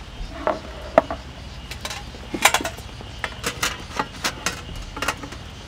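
Stainless steel top panels of a Snow Peak IGT camp table clinking and tapping as they are set into the metal frame beside the burner unit: a series of sharp metal clicks in small clusters.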